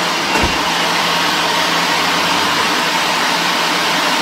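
Personal countertop blender running steadily, its motor whirring as it blends a smoothie of banana, mango, dates and avocado. There is a single low thump about half a second in.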